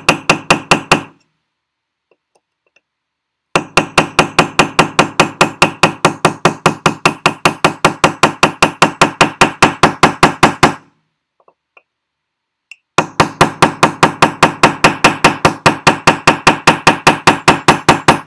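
Small metalsmithing hammer rapidly tapping a tube rivet against a steel bench block, about five ringing strikes a second. The strikes come in three runs, with pauses of about two seconds just after the start and near the two-thirds mark. The strikes are flattening the rivet's flared end, which is crooked and slumping to one side because the tube was left too long.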